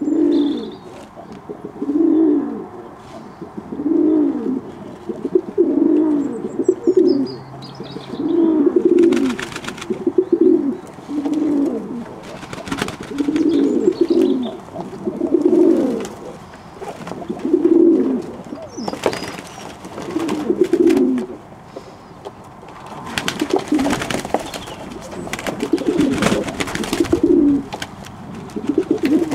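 Fantail pigeons cooing over and over, a low rolling coo every couple of seconds, with faint high chirps and occasional sharp knocks or rustles of birds moving.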